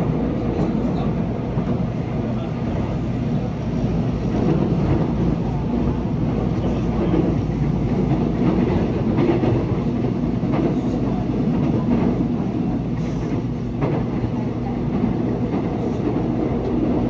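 Seoul Subway Line 1 electric train running at speed: a steady rumble of wheels on rail under a low electric hum, with a few sharp clicks over the track late on.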